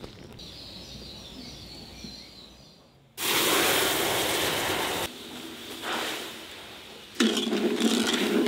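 Water poured onto hot caramelizing sugar in a wok sets off a sudden loud hiss of sizzling and steam about three seconds in, lasting about two seconds. Near the end a second loud stretch of sizzling and scraping follows as the syrup is stirred with a wooden spoon.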